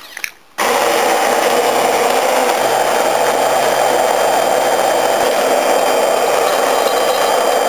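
Immersion blender switched on about half a second in, then running steadily as it purées cooked potato and squash soup in a metal pot.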